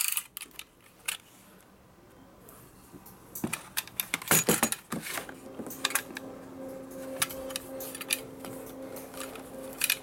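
Clicks, knocks and light rattles of a 25 mm cutter knife with a rubber-gripped plastic body as it is handled and taken apart. The clicks are scattered and come thickest around the middle.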